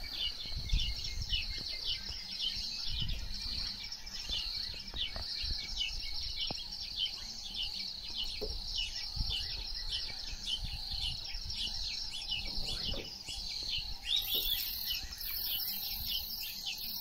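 Wild birds chirping in a dense, continuous chorus of short, rapidly repeated high chirps, over a low rumble.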